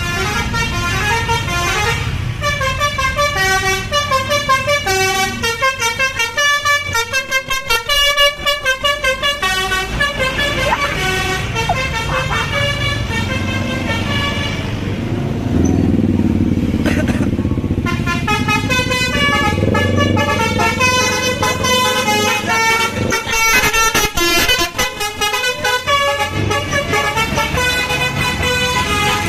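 Bus 'basuri' telolet horn, a multi-tone musical horn, playing quick melodic runs of changing notes, with a brief break in the tune about halfway through.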